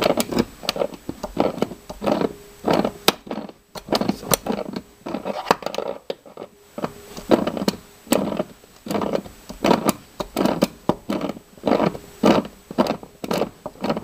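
A rusted seat-belt Torx bolt creaking and grinding in its threads as it is turned with vice grips, in short strokes about twice a second with a brief pause about halfway through. The bolt is still too tight to turn by hand.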